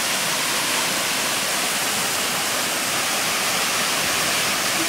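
Water of a jungle waterfall rushing and splashing in a steady, even rush with no break.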